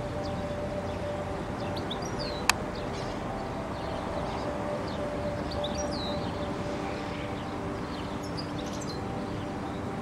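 Small songbirds chirping, short high notes scattered throughout, over a steady low hum with several pitches. A single sharp click about two and a half seconds in stands out above everything else.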